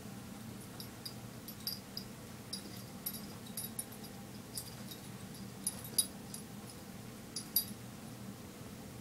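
Baby mini rex rabbits being handled on a towel: short, high-pitched ticks come every second or so, with the sharpest about six seconds in and another near seven and a half, over a steady low hum.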